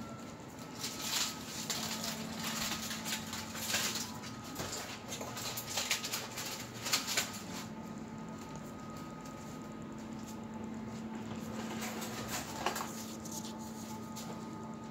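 A small dog's claws clicking and pattering on a ceramic tile floor, a run of quick irregular clicks in the first half and a single click later, over a steady hum.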